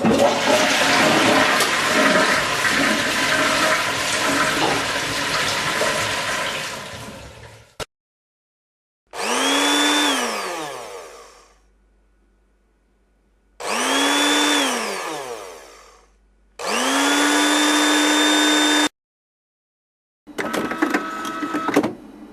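A string of separate household sounds. First comes about eight seconds of rushing noise that fades away. Then a small electric appliance motor whirs up and winds down twice, runs steadily for about two seconds, and a short mechanical rattle with clicks follows near the end.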